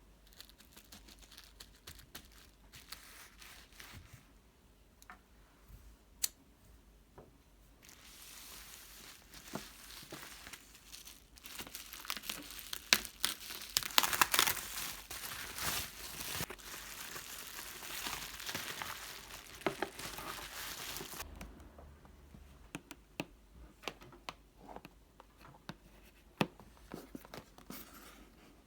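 Packaging wrapping on a mystery box being torn open and crinkled by hand, among light taps and clicks. The tearing and crinkling swells about a third of the way in, peaks around the middle and dies away about three quarters of the way through.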